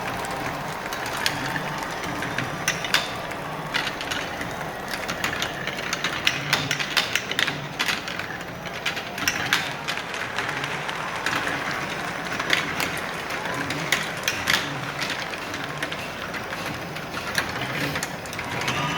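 Marbles clicking and clacking in an irregular, rapid stream of sharp knocks over a steady background hiss.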